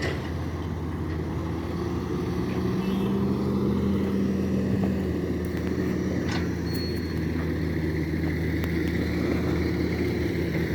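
Large engine, likely on construction machinery, running steadily at an even pitch, with a couple of faint sharp clicks.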